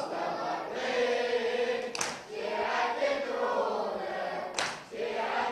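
A congregation of men chanting a refrain together in a Shia latmiya (Muharram lamentation chant), off-microphone and much quieter than the lead reciter. Two sharp hand strikes cut through, about two seconds in and near the end.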